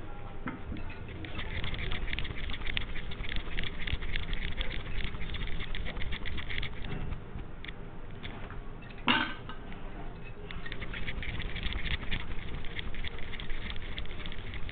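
Bangles jingling and clicking rapidly against each other as hands roll semolina dough into balls between the palms, in two spells of quick clinking. There is a single sharper clink about nine seconds in.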